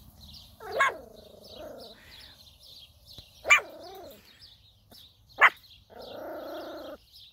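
Young miniature schnauzer puppy giving three short, sharp yaps about two seconds apart, with small birds chirping throughout.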